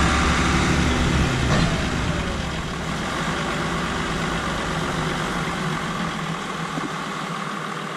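Heavy diesel engine of farm machinery running steadily during maize chopping; its deep low rumble drops away about a second and a half in, leaving a quieter, higher engine hum.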